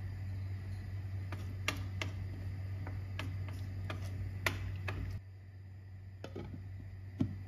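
A spoon stirring rice in its cooking liquid in a non-stick pot, tapping lightly against the pot several times, over a steady low hum that stops about five seconds in. Near the end there is one louder knock as the glass lid goes on the pot.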